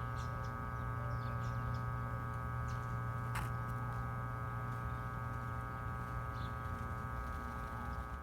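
A steady electrical hum throughout, with a few faint short bird chirps over it and a single sharp click about three and a half seconds in.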